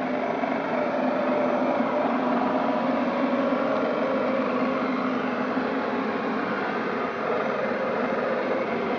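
Meyoung robot vacuum cleaner running steadily, its suction motor and brushes giving an even whirring hum.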